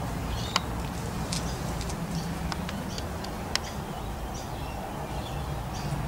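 Low, steady hum of honeybees at the hive, with faint bird chirps in the background and a few light clicks.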